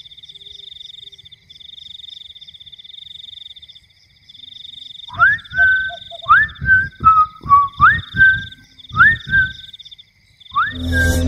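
A man whistling by mouth: a run of short phrases, each sweeping up and settling on a held note, over a steady pulsing night chorus. Just before the end a loud musical hit comes in.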